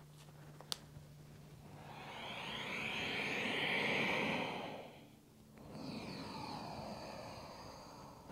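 A long, deep exhale through the mouth that swells and fades over about three seconds, followed after a short pause by a softer inhale: slow yoga breathing timed with lowering into child's pose and rising again. A small click just under a second in.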